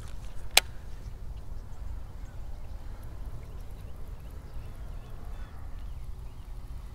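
Quiet swamp ambience heard from a kayak: a steady low rumble, faint chirping bird calls in the middle, and a single sharp click about half a second in.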